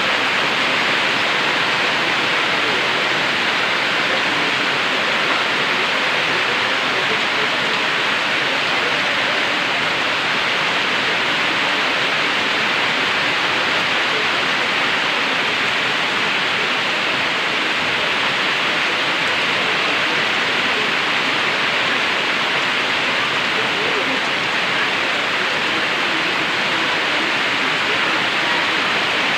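Heavy tropical-storm rain falling steadily, a dense, even hiss with no letup.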